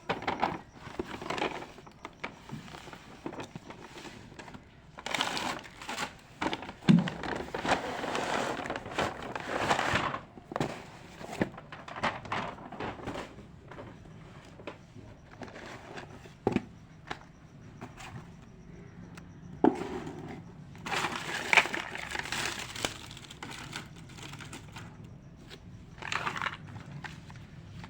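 Unboxing a miniature toy kitchen set: plastic packaging crinkling and rustling in several stretches, with scattered sharp clicks and taps of small toy pieces.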